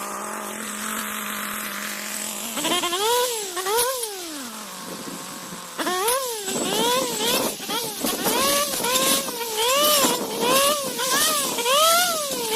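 Weedeater (brush cutter) engine with a chainsaw-style blade fitted, idling steadily, then revved up and down in repeated throttle bursts from about two and a half seconds in, settling back briefly near the middle before the bursts resume.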